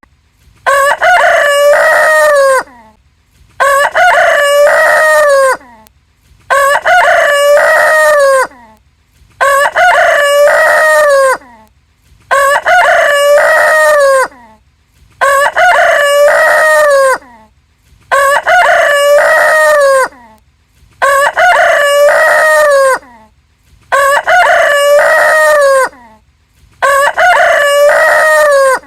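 Rooster crowing: about ten full cock-a-doodle-doo crows, each about two seconds long, one every three seconds. The crows are all alike in shape, the same crow repeated over and over.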